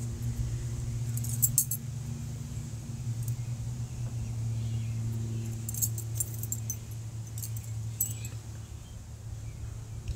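Small metal pieces jingling and clinking in several short clusters, over a steady low hum.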